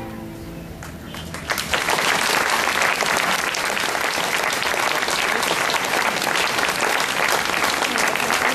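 The last held notes of music fade out, then an audience breaks into steady applause about a second and a half in.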